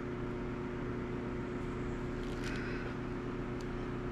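Steady low background hum with a held tone. About two and a half seconds in comes a brief faint rustle of glossy trading cards being slid through the hands, then a tiny click.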